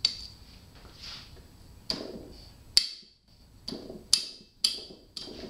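Ratchet wrench and 6-point socket clicking and clinking against a rusty cylinder-head nut on a Suzuki GS550 inline-four as the socket is seated and the nut is worked loose: about six sharp metallic clicks, each with a short ring, spaced unevenly.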